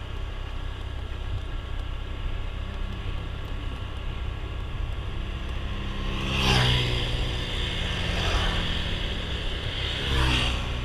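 Road traffic passing: over a steady low rumble, three vehicles go by in turn, the first and loudest about two-thirds of the way in, the others close after it near the end.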